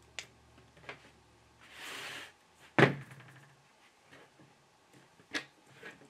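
Small diagonal cutters snipping away the excess braid strands, shield foil and jacket from the end of a coaxial cable: a few sharp clicks, a short rustle about two seconds in, and a louder knock just before three seconds in.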